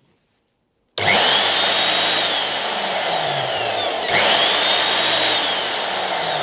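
Titan SDS hammer drill, powered straight from the mains with its trigger switch bypassed, starts abruptly about a second in and runs at full speed with a high whine. About four seconds in there is a click and the whine rises again. Because the drill runs fine this way, the trigger switch is the part that has failed, and the motor and carbon brushes are in good condition.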